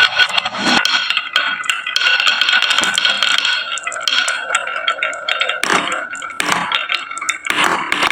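Marbles rolling and clattering down wooden marble-run tracks: a continuous rattle of many small clicks, with a few louder knocks in the second half.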